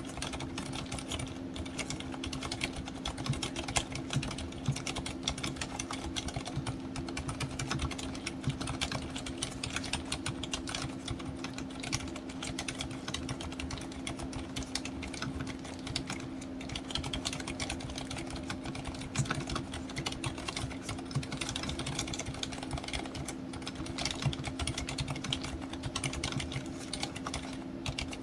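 Continuous fast typing on a Hansung TFG ART Wireless mechanical keyboard with silent red switches and full rubber dampening: soft, hushed keystrokes with no case ring.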